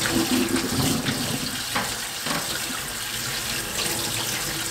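Kitchen tap running steadily onto tofu noodles in a mesh strainer, the water splashing into a stainless steel sink as the noodles are rinsed.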